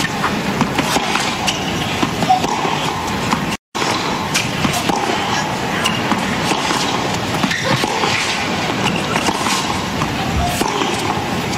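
Tennis rally on a hard court: the ball is struck back and forth, with sharp hits at irregular intervals over a steady crowd murmur. The sound cuts out for an instant a little over three seconds in.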